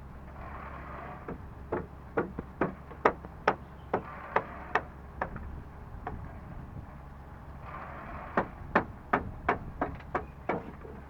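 A hammer striking repeatedly: two runs of sharp blows, about ten and then about seven, some two to three a second.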